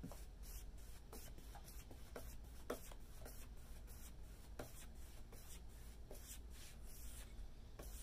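Paintbrush bristles swishing back and forth over a wet coat of Retique It liquid wood on a flat tabletop. The strokes are faint, quick and even, about two to three a second.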